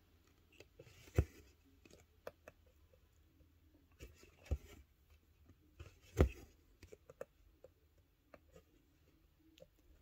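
Quiet handling sounds of cross-stitching on an 11-count stamped fabric held on a stand: scattered soft ticks as the needle and floss are worked through the fabric, with three sharper taps about one, four and a half and six seconds in.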